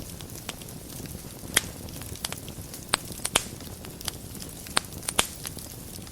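Wood fire burning in a fireplace: a steady low rumble of the flames with frequent sharp crackles and pops, five or so standing out loudest.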